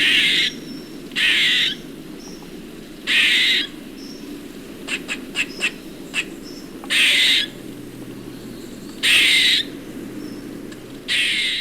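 Grey squirrel calling: a harsh, rasping call of about half a second repeated roughly every two seconds, with a quick run of short chattering notes about five seconds in.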